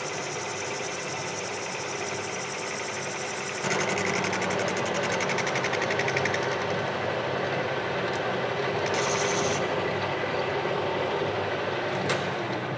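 Metal lathe running while a boring bar cuts the inside of a cast iron casting on a 50-thousandths pass, a steady machining sound with a fine rapid chatter in it. The cutting noise grows louder about four seconds in, and a single click comes near the end.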